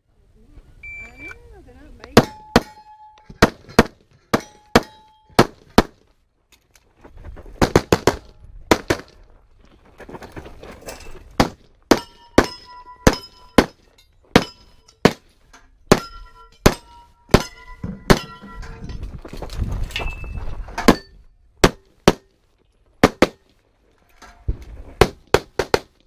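Handgun fired in quick strings of shots, a few shots at a time with short pauses, the hits on steel targets ringing with a short metallic tone after several of the shots.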